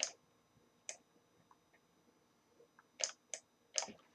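About five scattered, sharp single clicks from a computer keyboard and mouse. One comes right at the start, one about a second in, and a close group of three comes near the end.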